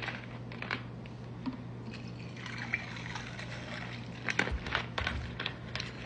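Pink lemonade poured from a plastic bottle into a glass of whiskey, the glass filling up. A few light clicks and knocks in the second half.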